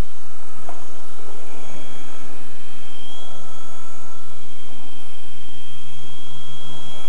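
Electric motors and rotors of an E-flite Blade CP collective-pitch RC helicopter running on an 11.1 V battery: a steady whine with several tones that drift slightly in pitch.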